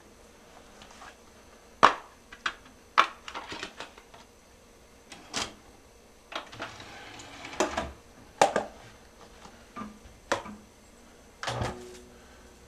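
A scattered series of sharp clicks and knocks from hard objects being handled, irregular and spaced out, with the loudest knock about two seconds in.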